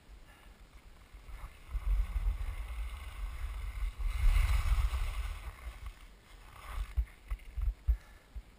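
Wind buffeting the camera's microphone while skiing downhill, mixed with the hiss of skis sliding on groomed snow, loudest about four to five seconds in. A few short gusts thump on the microphone near the end.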